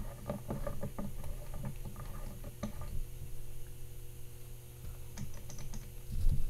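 Small irregular clicks and taps of a plastic speedometer sensor pickup being fitted into a VW 02J/02A transmission case, with the differential inside turned by hand to let it go in; the clicks grow busier near the end. A steady low hum runs underneath.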